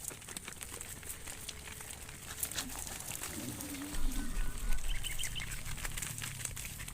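Outdoor livestock sounds while cattle are herded: a short, low call from a cow about halfway through, followed by a quick run of high bird chirps. Scattered clicks run throughout, and a burst of low thumps and rumble is the loudest part.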